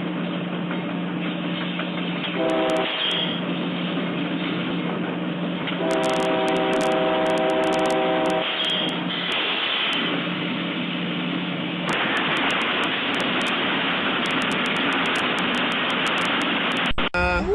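Train passing with a steady rumble; its locomotive horn sounds a short blast, then a longer one a few seconds later.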